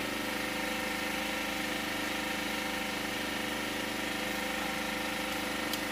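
An engine running steadily at a constant speed: an even, unbroken hum with no change in pitch or loudness.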